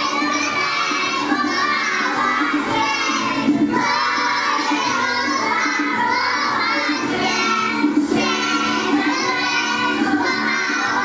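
Group of young children singing a Christmas carol together, with instrumental accompaniment.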